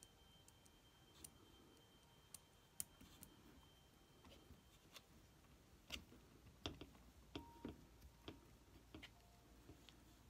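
Faint, scattered clicks and light taps of hands working small metal and plastic parts at the front wheel hub and brake caliper of an RC truck, undoing a crooked fitting; the clicks come irregularly, a little more often in the second half.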